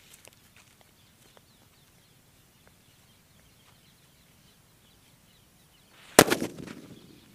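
A small firecracker going off with a single loud, sharp bang about six seconds in, its boom dying away over about a second. Faint footsteps on dirt come at the start, then a quiet stretch while the fuse burns.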